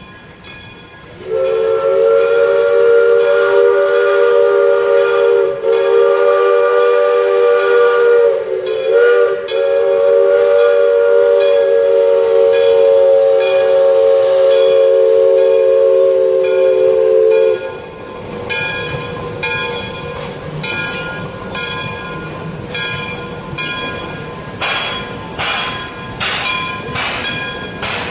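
A steam locomotive's chime whistle blows one long chord of several notes. It is held for about sixteen seconds, with a brief waver near the middle, then cuts off. Steam hiss and a run of regular sharp knocks follow, quickening near the end.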